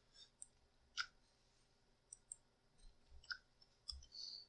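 Faint, scattered clicks of a computer keyboard and mouse, about eight in all, the loudest about a second in, over near silence.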